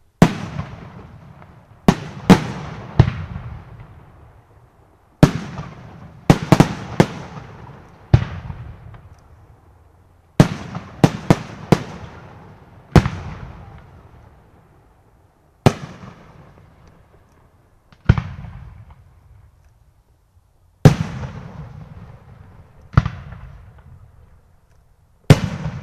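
Aerial firework shells bursting in a display: a series of sharp bangs, some single and some in quick clusters of two to four, each trailing off in a long fading echo.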